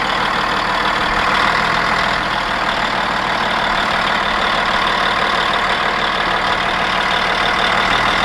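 Caterpillar D8 bulldozer's diesel engine running steadily.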